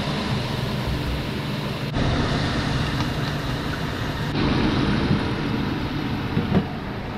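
Minced pork and chilies sizzling steadily in a nonstick frying pan while being stirred with a spatula.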